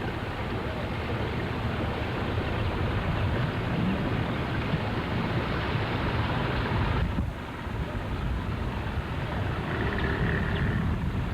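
Steady wind buffeting the microphone mixed with water noise on the lake, with a brief lull about seven seconds in.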